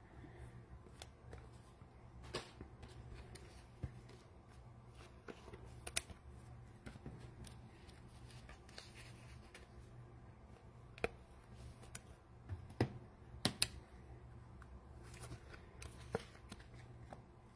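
Trading cards handled and sorted by hand: scattered soft clicks and taps of card stock, a few sharper ones, over a steady low hum.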